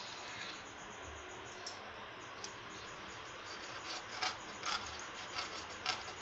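Quiet knife work on a fresh taro leaf as its veins are cut away: faint scraping with a run of soft ticks and rustles, about two a second, in the second half.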